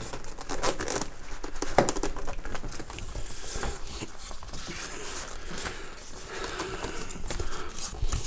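Cardboard end flap of a large monitor box being pulled open by hand: irregular scraping, rustling and crinkling of cardboard and packing, with small clicks.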